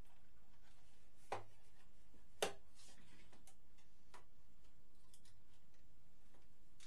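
A few sharp, isolated clicks of small tools and metal parts being handled during bench repair work, the loudest about two and a half seconds in, over a faint steady hum.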